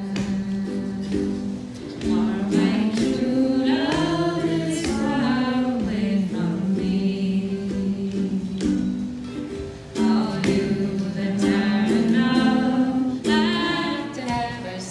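Several voices singing a slow folk song together, with long held notes and gliding phrases.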